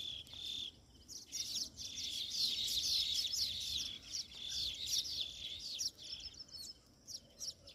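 A colony of many small birds chirping at once: a dense, overlapping chatter of high chirps that thins to scattered calls after about six seconds.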